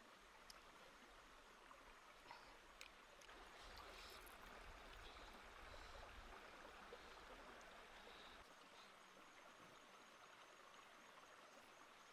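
Near silence: a faint, steady outdoor background hiss, with a few faint small clicks.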